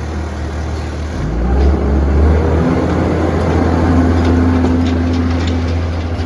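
Diesel engine of the Botchan Ressha replica steam locomotive running with a deep, steady rumble that grows louder about a second and a half in, a steady hum joining it shortly after, as the train works under load.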